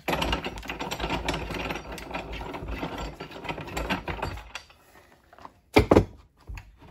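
A homemade bike repair stand being loosened from the workbench: rapid ratchet-like mechanical clicking for about four seconds, then two sharp knocks close together near the end.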